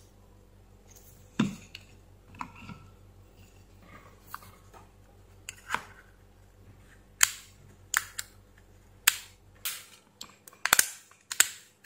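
Sharp, irregular clicks from the clutch of an Ingco cordless drill's reassembled gearbox as it slips and re-engages by hand, a sign that the clutch is engaging and disengaging properly. The clicks are sparse and soft at first, then come louder and closer together in the second half.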